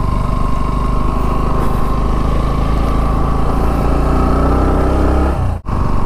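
Single-cylinder motorcycle engine running under way, the engine note rising steadily over about two seconds as the bike speeds up. The sound cuts out abruptly near the end.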